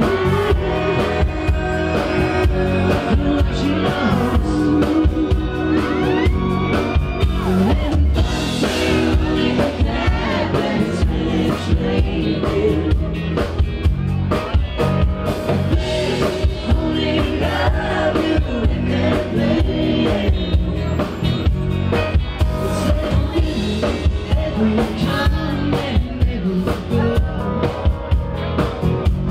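Live band playing a song: electric bass, drum kit and guitar, with a lead singer.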